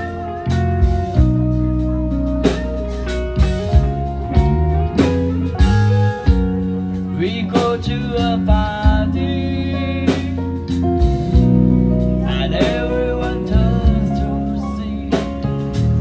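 Live band playing a song: guitar over a drum kit, with steady drum hits keeping the beat.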